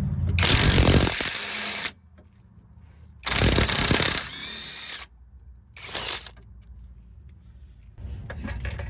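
A power tool run in three short bursts, the first about a second and a half long, the second about a second, the third brief, with quiet gaps between.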